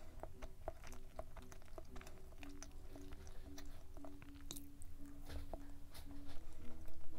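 Close-miked chewing of a dense, fudgy chocolate brownie muffin with the mouth closed: many soft, wet mouth clicks. Quiet background music with held notes plays under it.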